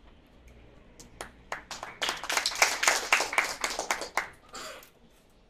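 Small audience clapping: a few scattered claps about a second in, building to brief applause that dies away near the end.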